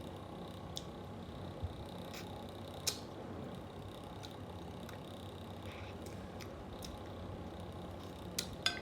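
Steady whir of an electric fan, with a few sharp clicks and soft chewing sounds of someone eating; a couple of the clicks come close together near the end.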